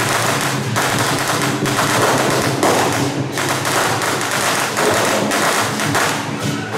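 A string of firecrackers going off in a rapid, continuous crackle, over steady low tones from procession music.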